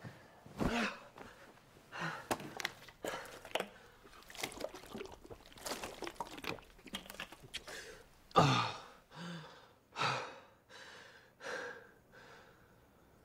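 A young man's agitated gasps, sighs and heavy breaths, short and irregular, with two louder groans about eight and ten seconds in.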